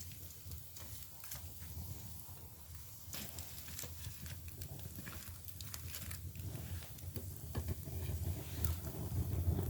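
Split bamboo firewood burning in a traditional Korean agungi firebox: scattered sharp crackles and pops over a low rumble that swells toward the end.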